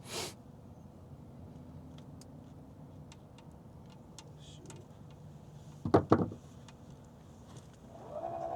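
Two loud knocks in quick succession about six seconds in, over a low steady hum, with a brief hiss at the very start.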